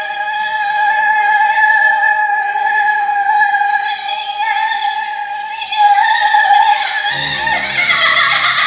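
Music with a high, held, opera-like singing line. Low repeating accompaniment notes come in about seven seconds in.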